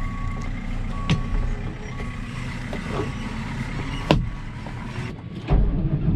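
John Deere 6930 tractor's engine idling, heard inside the cab, with a short beep repeating about once a second. The driver's seat is handled and adjusted, giving clicks and knocks, the loudest about four seconds in. The engine note grows louder about five and a half seconds in.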